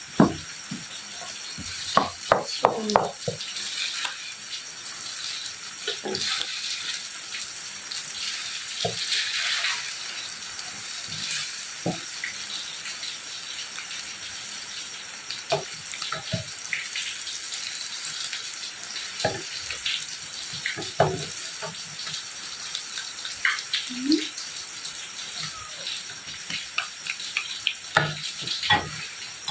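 Egg and mugwort frying in a pan, a steady sizzle with scattered clicks and knocks of a utensil against the pan.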